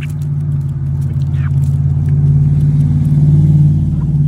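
A motor's steady low drone with a few overtones, growing louder through the middle and easing slightly near the end.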